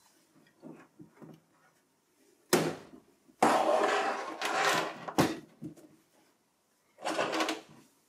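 Metal case of a small-form-factor desktop PC being handled and turned around on a desk: a knock about two and a half seconds in, then about a second and a half of scraping as it slides, a click, and another short scrape near the end.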